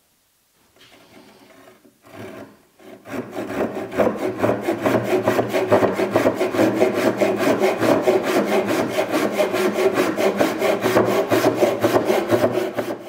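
Hand saw cutting through wood, trimming the end off a wooden sled fence: quiet handling for the first few seconds, then a long run of fast, even back-and-forth saw strokes that stop just before the end.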